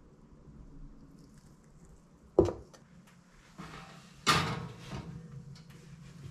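A sharp knock, then a glass baking dish set down on a wire oven rack, clattering and scraping for about a second as it goes in.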